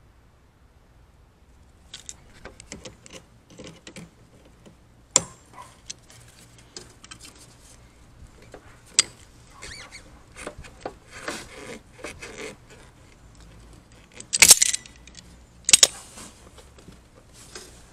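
Locking pliers (vise grips) clinking and rattling against metal as they work a fastener under the car's front end. Scattered small metallic clicks, with two sharp, loud clacks a little over a second apart near the end.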